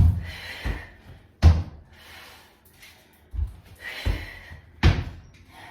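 Feet thudding on the floor during jumping thrusters, the body jumping in and back: four heavy thumps about one and a half to two seconds apart.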